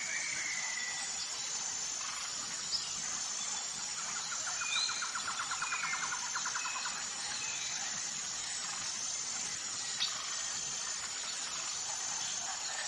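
Forest birds calling over a steady rush of falling water: short whistled chirps and glides, repeated high thin notes, and a rapid trill from about four seconds in that lasts a few seconds.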